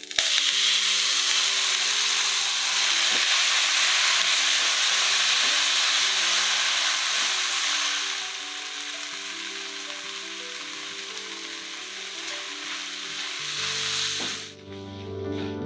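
Blended chili paste of chilies, shallots, garlic and tomato sizzling hard in hot oil in a wok, stirred with a spatula. The sizzle starts suddenly as the paste goes into the oil, eases about halfway through, and cuts off shortly before the end.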